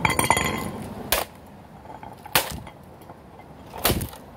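A small hatchet chopping down on a plastic VHS cassette: four sharp blows roughly a second and a half apart. The first blow is followed by a brief clatter.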